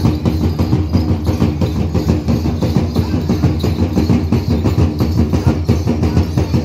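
Live folk percussion: drums beaten in a fast, steady rhythm of dense, even strikes.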